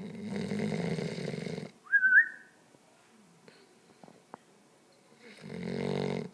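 A sleeping puppy snoring: one long rasping snore, then a short high whistle, and a second snore near the end.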